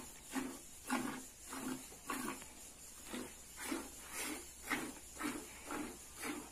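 Hand-milking a cow: squirts of milk hitting a plastic bucket in a steady rhythm, about two a second.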